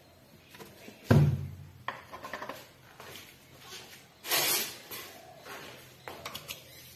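Off-camera kitchen handling noises: a heavy thump about a second in, a short hiss a little past four seconds, and a few light clicks near the end.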